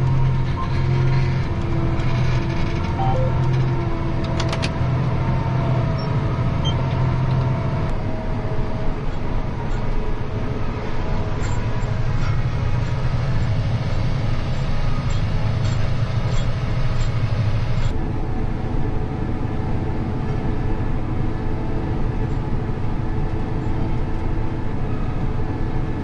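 John Deere 8270R tractor running steadily under load while pulling a Claydon seed drill, heard from inside the cab as a continuous low engine drone.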